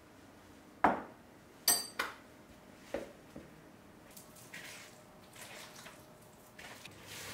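A metal spoon clinks sharply against the mixing bowl about five times, loudest about a second in, one clink ringing briefly. Then comes softer scraping as the spoon stirs the soft butter, egg and sour cream dough mixture.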